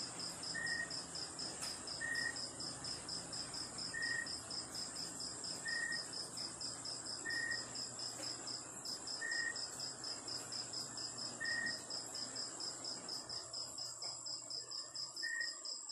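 Insects chirping in a quick, even pulse over a constant high trill, with a short lower chirp repeating about every two seconds.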